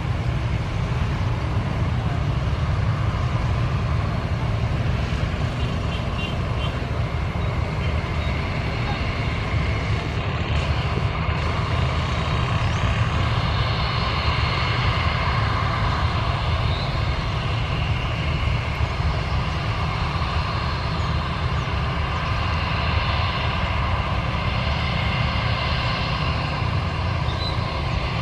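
Jet airliner engines whining, with several steady high tones growing louder from about halfway through, over a steady low rumble of strong wind on the microphone.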